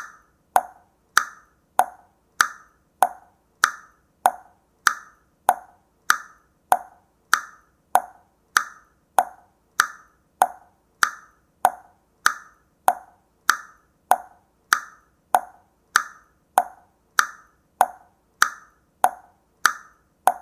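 Mechanical clock ticking steadily, a crisp tick-tock a little under two ticks a second, each tick short and dry.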